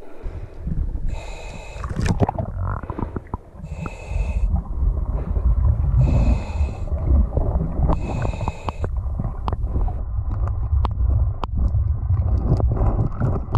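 Diver breathing underwater through a diving regulator: four hissing inhalations about two seconds apart, with rumbling exhaust bubbles throughout and scattered sharp clicks in the later part.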